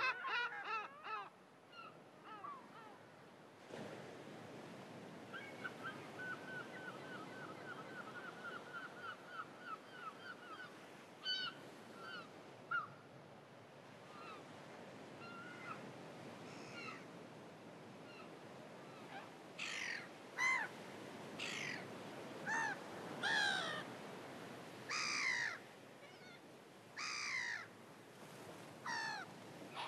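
Birds calling: a quick run of short repeated notes about a third of the way in, then loud harsh calls every second or two through the second half, over a steady background hiss.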